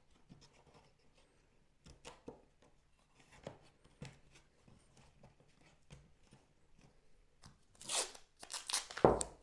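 Laser-cut wooden pieces clicking and tapping lightly as they are fitted together by hand. Near the end, masking tape is pulled off its roll in a few loud rasping rips.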